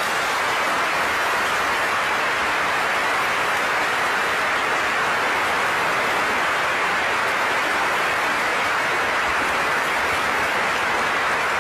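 A large audience applauding: dense, steady clapping that starts just as orchestral music ends.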